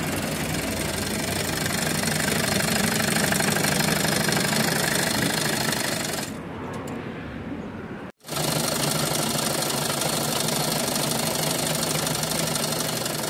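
Industrial sewing machine running at speed, stitching the strap on a motorcycle seat cover. It eases off and quietens about six seconds in, stops abruptly at an edit, then runs at full speed again.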